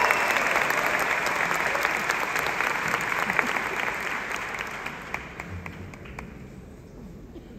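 Concert audience applauding, the clapping dying away steadily and thinning to a few scattered claps over the last couple of seconds.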